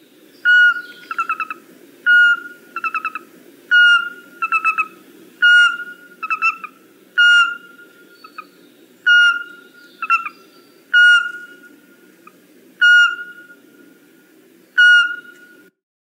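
Eurasian pygmy owl singing: a series of piping whistled notes, about one every second and a half to two seconds, nine in all, with quicker short notes slipped in between the first several.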